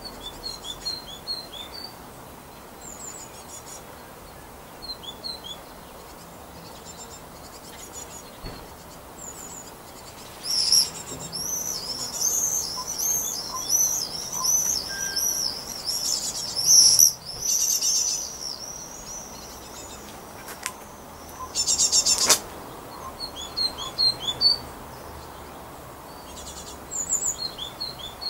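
Great tits calling: repeated short high chirps, then a long run of rapid, loud high chirping from about ten seconds in, and several brief buzzy rasping calls later on.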